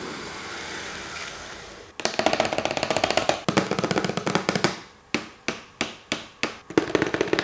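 Short percussive intro music: a noisy whooshing swell for about two seconds, then a fast drum roll and a string of separate drum hits.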